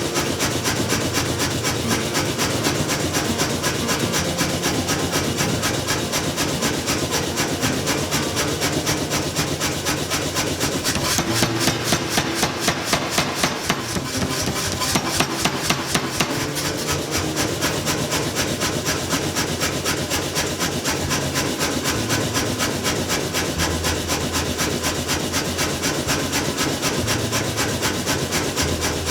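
Steady metalworking noise: a fast, even run of metal strikes or rasping strokes, several a second, with louder separate strikes for a few seconds in the middle.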